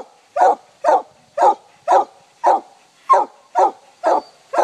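Treeing Walker coonhound barking in a steady run of short barks, about two a second.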